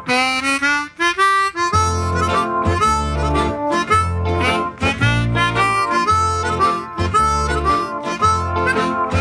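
Background music: a harmonica tune over guitar and a steady bass beat.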